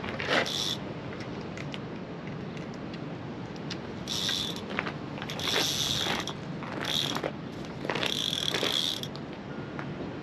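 Sea-fishing reel being wound on a beachcaster, its gears whirring and clicking in several short spells of winding.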